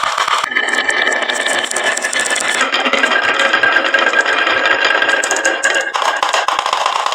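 Many glass marbles rolling and clattering down a wooden HABA marble-run slope, a steady dense rattle of rapid clicks with a brief dip about six seconds in.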